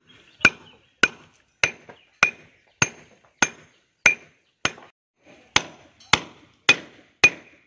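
Hand hammer striking a steel chisel into concrete, chipping it out: about a dozen evenly spaced blows, a little under two a second, each with a short metallic ring, with a brief pause a little past the middle.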